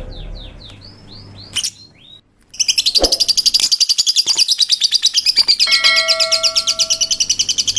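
African lovebirds chirping: a few separate falling chirps at first, then after a brief break a rapid, continuous stream of high-pitched chirps.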